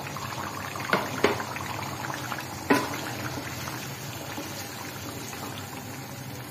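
Chicken, onions and oil sizzling and bubbling in a karahi as blended tomato paste is poured in and stirred with a wooden spoon. Three sharp knocks against the pan land in the first three seconds.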